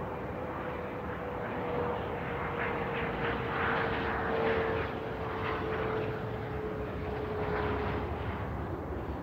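Airplane flyby sound effect: a steady rushing drone whose engine tone falls slowly in pitch and fades out near the end.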